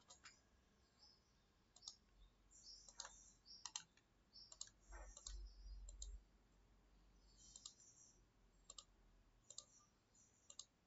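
Computer mouse clicking: about a dozen short clicks at irregular intervals, the pace of picking objects one at a time in a CAD program.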